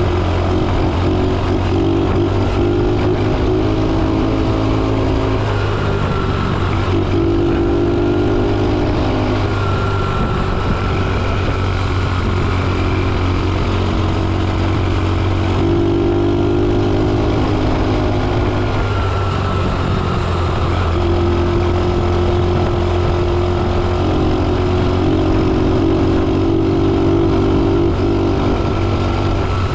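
A motor vehicle's engine running steadily with a constant deep hum, and a higher tone that swells and fades every few seconds.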